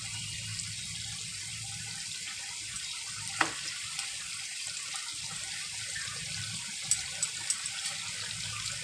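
Chicken pieces frying in hot oil with a steady sizzle. A few light clinks of the utensil come about three and a half seconds in and again around seven seconds, as pieces are lifted out of the oil.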